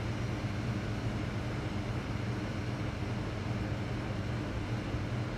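Steady low hum with a faint hiss of background noise, unchanging throughout.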